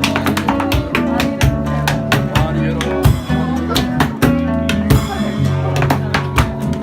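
Music with guitar and a steady drumbeat.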